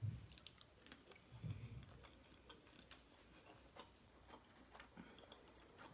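Very faint chewing: scattered small, wet mouth clicks from eating a cheddar-stuffed sausage, with two brief low sounds near the start and about a second and a half in.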